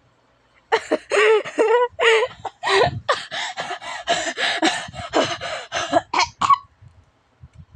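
A person laughing hard, with no words. It starts with pitched, rising-and-falling whoops, then runs into rapid breathy bursts about four a second, and stops suddenly near the end.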